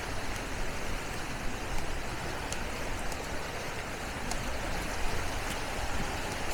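Steady rushing noise of small waves washing onto a sandy beach, with a low rumble underneath.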